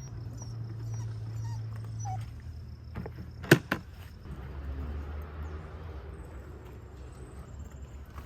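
A dog giving a few short whines, with two sharp knocks in quick succession about three and a half seconds in.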